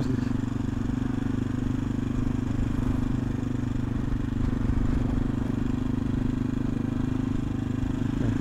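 AJP PR7's single-cylinder engine running steadily at an even cruising speed while the motorcycle is ridden, heard from the rider's seat.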